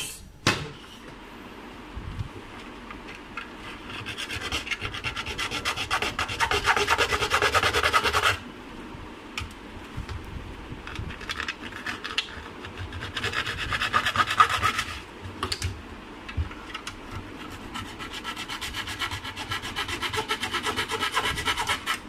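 Hand file rasping at a plastic vacuum cleaner housing in quick back-and-forth strokes, shaping a cut-out for a new on/off switch. The filing comes in three spells, the loudest about four to eight seconds in, after a single knock just at the start.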